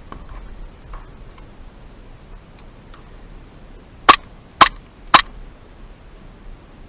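Airsoft gun firing three single shots about half a second apart, each a sharp loud crack, a little past the middle.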